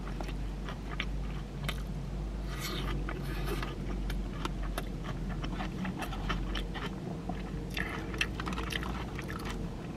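A person chewing a mouthful of cheeseburger close to the microphone, with many short wet mouth clicks throughout.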